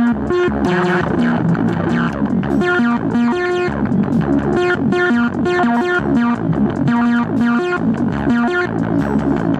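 Korg ARP 2600 analog synthesizer playing a fast, repeating sequence of short pitched notes, with some gliding, sweeping tones running through the pattern.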